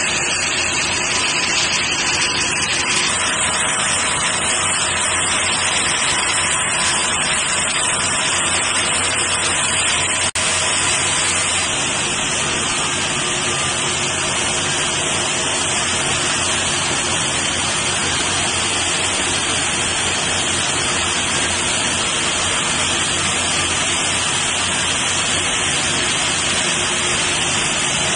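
Aluminium rod breakdown wire drawing machine running: a steady, loud hiss with faint, steady humming tones beneath it, broken only by a brief dropout about ten seconds in.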